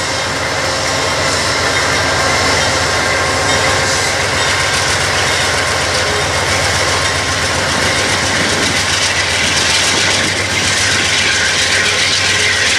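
Amtrak passenger train's stainless-steel coaches rolling past close by: a loud, steady rumble of steel wheels on the rails.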